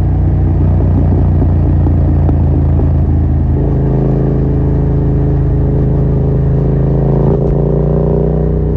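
Yamaha MT-07's 689 cc parallel-twin engine running under way through a Yoshimura R77 exhaust with no dB killer. The engine note shifts about three and a half seconds in, then holds steady.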